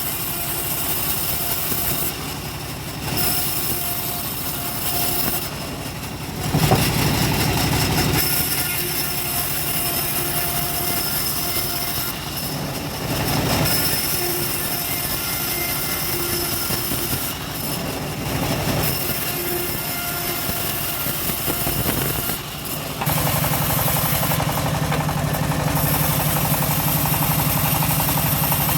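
Engine-driven homemade bandsaw mill running while it saws teak, the engine note shifting with the load. About 23 s in the sound changes to a louder, steadier drone.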